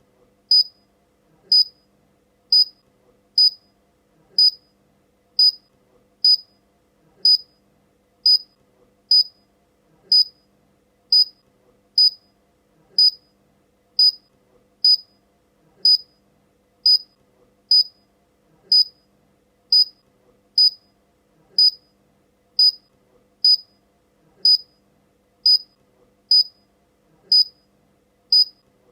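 Short, high-pitched electronic beep repeating evenly about once a second.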